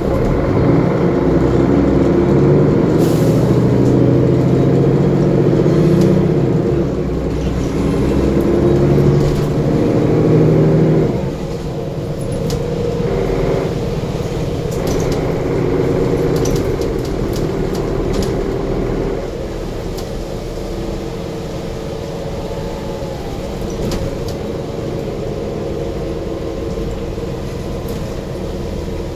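Mercedes-Benz OM457LA diesel engine of a Conecto G articulated bus pulling hard in a kickdown through its Voith D864.5 four-speed automatic, heard from inside the passenger cabin, the engine note climbing in pitch. About eleven seconds in the note drops back suddenly to a lighter pull, and about two-thirds through it falls quieter again.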